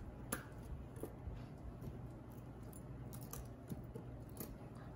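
Costume jewelry being handled and picked through, giving light, scattered metallic clicks and clinks, about half a dozen over a few seconds, over a faint steady room hum.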